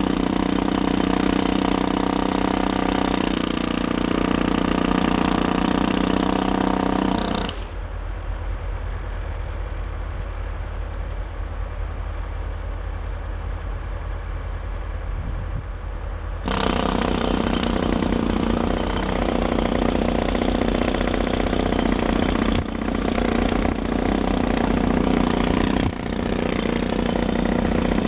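Pneumatic jackhammer chipping away the brick at a chimney top, with a loud rattling buzz. It runs for about seven seconds, stops for about nine, then starts again and runs with two brief pauses. A steady low engine idle runs underneath throughout.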